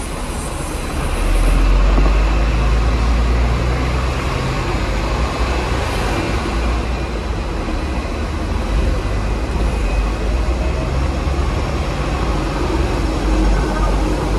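Hong Kong double-deck VVVF tram running along its street track: a steady low rumble of wheels on rail and running gear, which grows louder about a second in and then holds.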